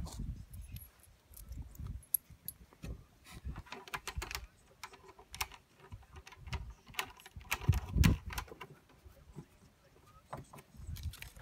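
Irregular knocks, clicks and scrapes of a blue plastic drum being handled and turned over, with a wooden batten pushed through it; a heavier thump about eight seconds in is the loudest.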